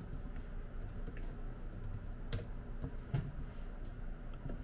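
Typing on a computer keyboard: scattered, irregular key clicks, the sharpest a little past halfway.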